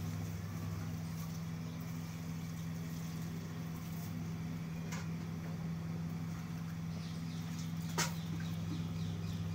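A steady low hum from a small motor or electrical source, with a faint click about five seconds in and a sharper, louder click about eight seconds in.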